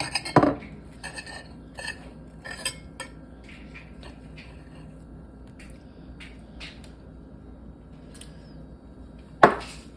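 Cutlery clinking and scraping against a plate, likely a fork and knife cutting pancake: a run of sharp clinks in the first three seconds, a few light taps after, and one loud clink near the end.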